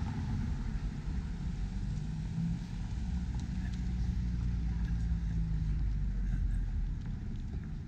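Road traffic: a motor vehicle's engine and tyres running low and steady, with a steady low engine hum from about two to six seconds in.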